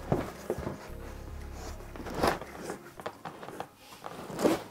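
Parts and packaging being handled and shifted in a cardboard box: a few scattered knocks and rustles, the loudest about two seconds in and just before the end.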